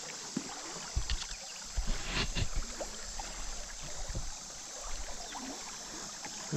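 Irregular knocks, bumps and rubbing from handling a fishing rod, spinning reel and a small channel catfish in a plastic kayak, some of them hits against the body-worn camera, over a steady hiss.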